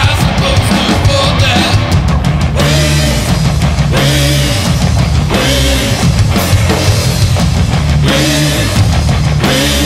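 Loud heavy rock music from a band, with the drum kit driving a steady beat.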